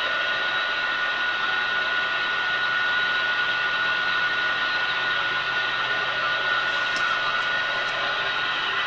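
CB radio receiver on the 11-metre band putting out steady static hiss with an unbroken whistle tone running through it, the open channel heard between calls while listening for distant skip stations; a few faint clicks come near the end.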